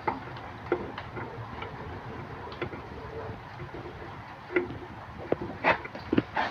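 Irregular clicks and knocks of metal tool parts being handled while a bearing puller is fitted to a washing machine's tub bearing.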